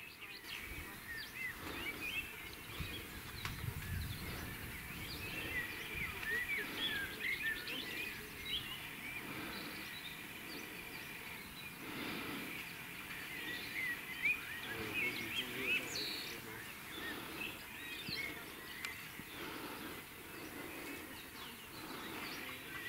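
Small birds chirping and singing in many short, quick calls over a steady outdoor hiss.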